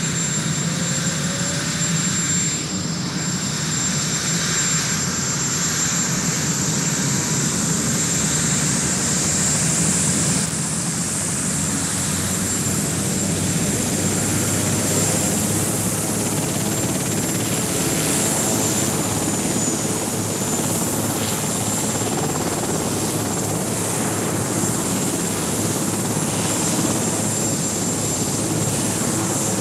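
Sikorsky VH-3D Sea King helicopter running on the ground with its main rotor turning: a steady, even engine-and-rotor noise with a thin high turbine whine over it.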